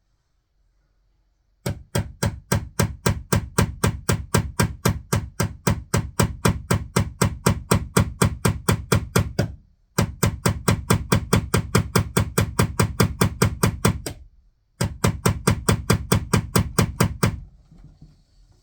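Rapid, evenly spaced hammer blows on a nail, about five a second, in three runs broken by short pauses.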